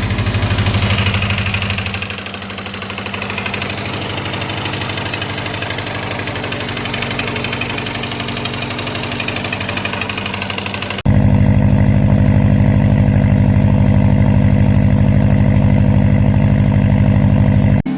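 Subaru EJ25 flat-four engine idling with a fast, steady knock, the noise that came with a P0011 camshaft-timing code. The owner thinks the camshaft is over-advanced and hopes the cause is the timing chain rather than a rod bearing. About 11 seconds in it cuts suddenly to a louder, closer sound of the same idling engine.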